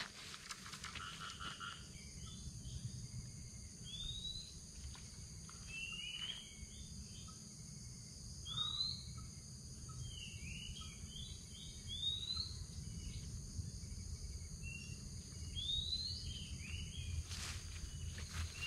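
Birds calling with short, rising whistled chirps at irregular intervals over a steady high insect drone, with a few rustling steps near the end.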